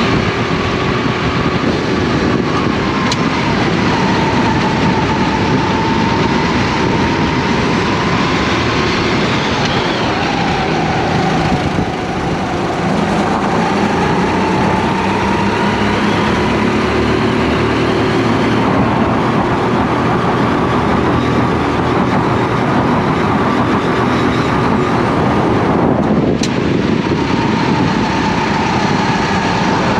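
Racing go-kart engine recorded on board, running hard at speed, its pitch rising and falling with the throttle. Near the end the revs drop sharply and then climb back.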